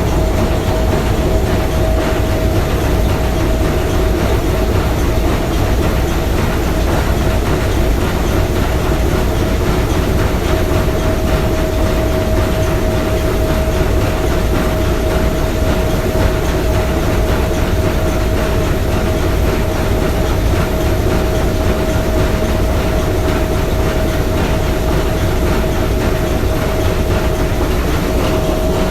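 Three-cylinder triple expansion marine steam engine running steadily at a constant pace, with a steady tone sounding through the mechanical noise.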